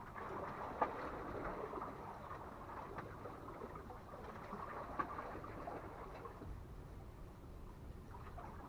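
Faint water lapping and trickling, with two sharp clicks, one about a second in and one about five seconds in.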